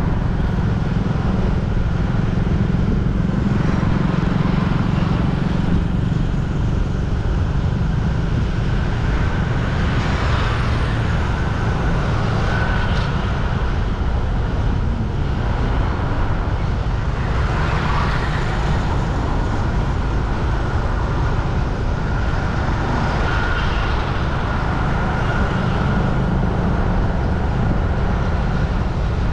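Steady road traffic with a continuous low rumble. Vehicles pass closer twice, about ten and eighteen seconds in.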